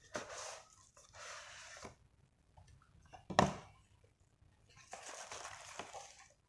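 Packaging being handled and unwrapped: several stretches of rustling and crinkling, with one sharp knock about three and a half seconds in.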